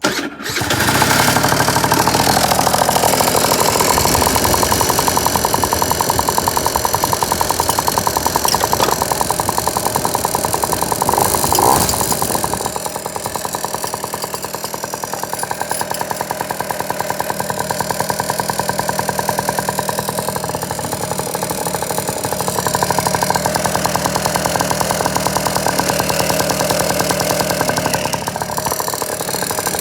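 Piaggio NRG scooter's two-stroke engine, fitted with a 70cc big bore kit, running with a ticking noise. The owner thinks the tick comes from the top end, though a check with the head off showed the piston is not hitting. The engine drops back to a quieter, lower speed for several seconds in the middle, then picks up again.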